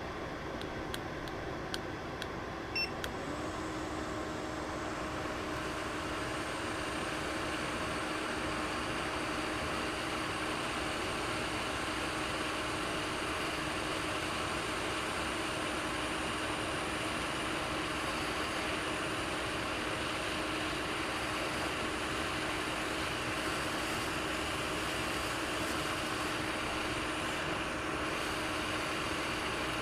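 Hot air rework station blowing steadily while reflowing solder balls in a chip reball: an even rush of air with a faint hum that sets in about three seconds in. A few light clicks come in the first seconds.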